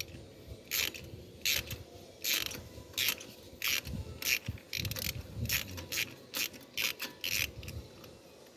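Ratchet wrench on a 14mm deep socket clicking in short strokes, about a dozen clicks at roughly one to two a second, as a spark plug is worked out of the engine.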